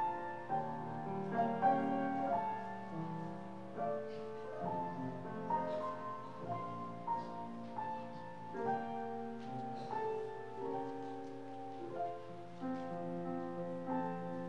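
Piano playing a slow piece of held notes and chords.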